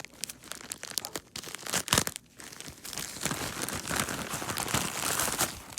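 Packaging crinkling and rustling as the contents are pulled from a small charger box, with a sharp snap about two seconds in and denser rustling through the second half.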